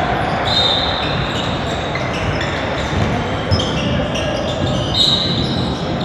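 Basketball game in an echoing gym: a ball bouncing on the hardwood floor, sneakers squeaking briefly twice, and the voices of players and spectators in the hall.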